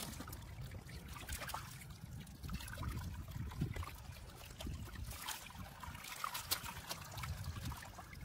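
Shallow water trickling and sloshing, with small irregular splashes and clicks scattered throughout.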